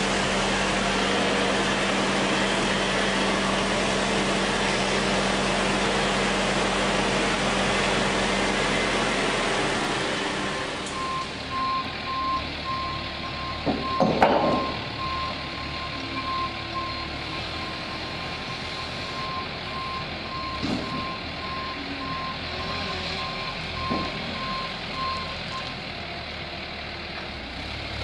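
Combilift four-way forklift running with a steady engine and hydraulic hum. About ten seconds in, the sound changes to the forklift's backup alarm beeping repeatedly, with one loud clank a few seconds after the beeping starts.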